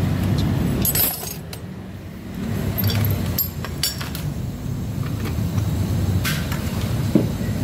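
Metal parts of a Yamaha X-Ride scooter's CVT clinking and clattering as the front pulley, drive belt and clutch are taken off by hand, a few scattered clicks over a steady low hum.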